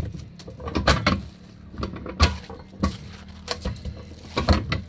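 Hands patting and pressing a small ball of flour-and-maseca tortilla dough flat between plastic sheets: a run of irregular slaps, about one every half second.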